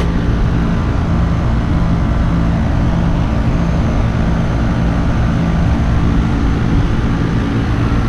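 Air-conditioner condensing unit running: the steady hum of its compressor and condenser fan.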